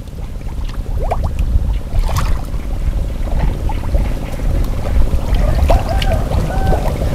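Muddy pond water sloshing and splashing as fish are grabbed by hand, with a low rumble throughout.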